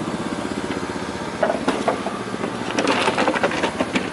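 A small engine running steadily, with a fast even pulse. Scattered knocks and clatter come about a second and a half in and again near the end.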